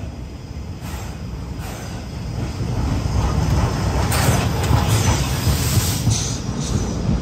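C11 steam locomotive and its train rolling slowly past along a station platform. A deep rumble and rail clatter grow louder as the engine draws level, peaking about four to six seconds in, with a burst of high hiss as it passes.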